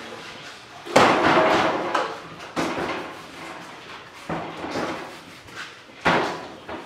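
Four heavy knocks on a stainless-steel worktable as bread dough is worked on it, coming about every one and a half seconds, each with a short ringing fade, the first the loudest.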